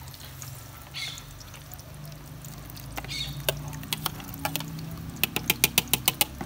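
Grated tomato being poured and scraped with a metal spoon from a plastic bowl into a steel pot of chopped vegetables; the spoon clicks against the bowl and pot a few times, then in a quick run of sharp clicks near the end.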